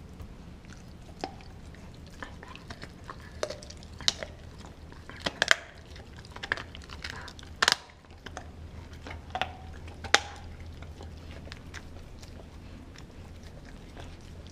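A pit bull–German shepherd mix dog chewing a frozen raw pig's foot: irregular sharp crunches and cracks of teeth on frozen bone and skin. The loudest cracks come in the middle, and the chewing goes quieter near the end.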